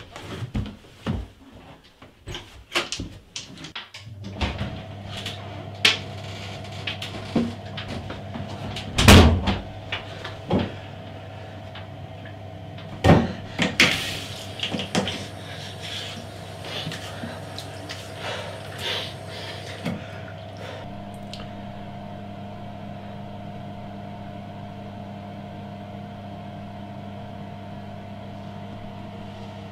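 Scattered knocks and clatters, the loudest about nine and thirteen seconds in. From about four seconds in there is a steady electrical hum that shifts in pitch about twenty seconds in.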